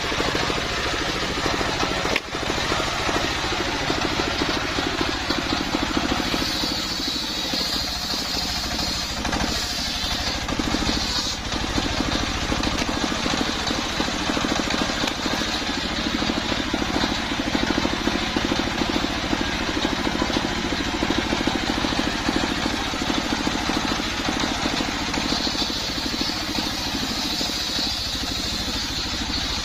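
Stationary diesel engine running steadily, belt-driving a large circular saw blade that rips sengon (albasia) planks. A higher cutting whine from the blade in the wood rises over the engine drone twice, about a quarter of the way in and again near the end.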